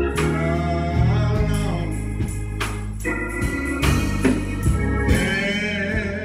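Organ music in a church service: held chords over a strong bass, changing chord every second or two.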